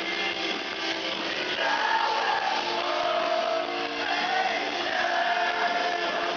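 A metalcore band playing live, loud and dense: a wall of distorted guitars with held pitched lines over it, heard from within the crowd.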